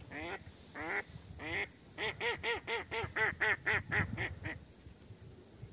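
Live decoy hen duck quacking to call in drakes: three single quacks, then a fast run of about ten quacks, roughly four a second.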